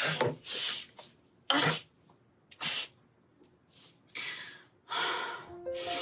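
A woman sneezing in a series of sharp, noisy bursts, the loudest about a second and a half in, over soft background music.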